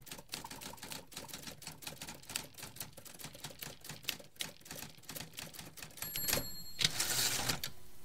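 Typewriter sound effect: rapid key strikes clicking several times a second. About six seconds in there is a short ring, then a louder, longer rush of noise near the end.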